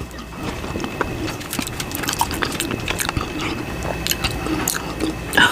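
Close-miked chewing of a soft crab salad rice paper roll: wet, squishy mouth sounds with many small clicks.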